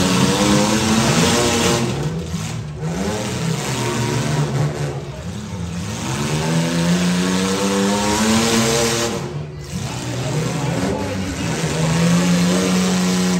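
Compact demolition-derby cars' engines revving hard and easing off in turn, their pitch climbing and falling several times, over the steady noise of a large grandstand crowd.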